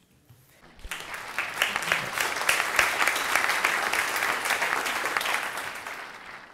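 Audience applauding. The clapping builds from about a second in, then fades away near the end.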